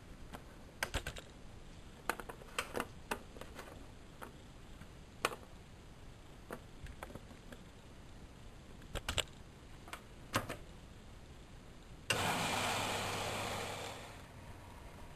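Whirlpool Expert 1000 washing machine: a series of light, irregular clicks and taps, then about twelve seconds in a sudden rushing noise with a steady low hum that fades away over about two seconds.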